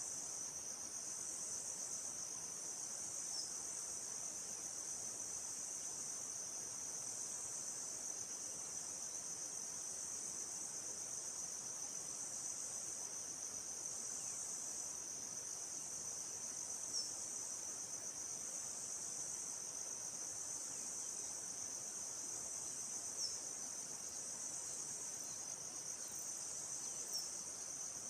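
Steady high-pitched chorus of forest insects, a continuous shrill trill with a slight pulsing, over faint forest hiss. A few short high bird chirps come through, about four times.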